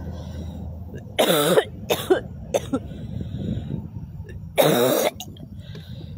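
A woman crying: short, choked sobs with a cough-like catch, about a second in, twice more just after, and a louder one near five seconds.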